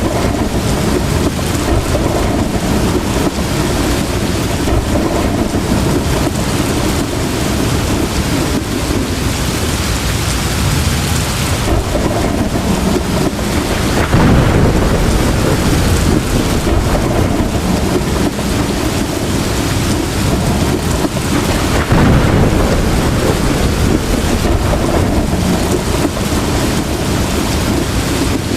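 Heavy rain falling steadily, with low rumbles of thunder that swell louder about halfway through and again about three quarters of the way in.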